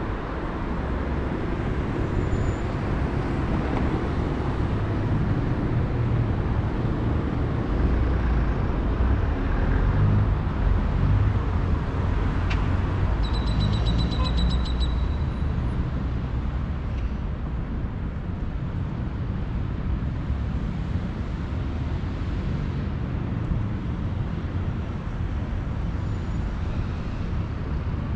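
Road traffic: a steady rumble of cars and buses passing, a little louder around a third of the way in. About halfway through comes a brief, high, rapid ticking.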